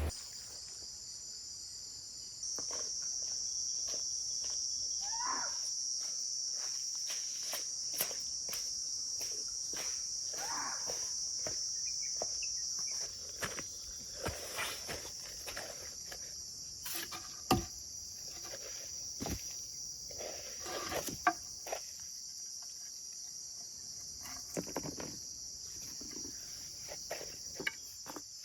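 Insects trilling in a steady, high-pitched chorus, louder for about ten seconds from a couple of seconds in. Scattered light clicks and knocks sound over it.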